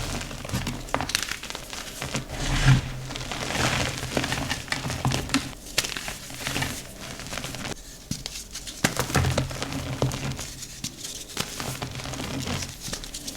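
Dry, reformed gym chalk slabs being crushed and crumbled by hand: an irregular run of crunches and crackles with brief lulls.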